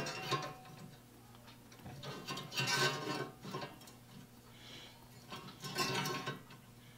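A hand-held saw set clicking and clattering against the steel saw plate as the middle teeth of a pruning saw are set. The clatters come in a few separate bursts: one at the start, a cluster around two to three seconds in, and another near six seconds.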